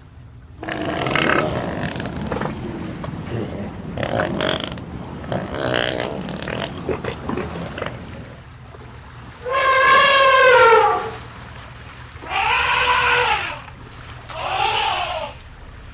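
Elephants calling in a river: a rough, noisy stretch of sound for the first several seconds, then three high, pitched squeals in the second half, each rising and then falling in pitch, the first the loudest and longest.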